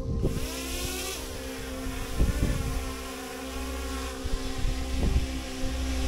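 A DJI Mini 3 Pro drone's propellers humming, the pitch gliding up and down about a second in, with wind noise and a steady background music tone underneath.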